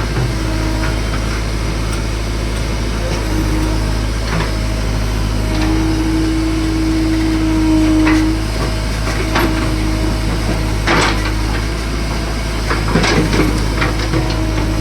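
JCB excavator's diesel engine running steadily under work, with a held tone that swells for about three seconds near the middle and several sharp knocks scattered through.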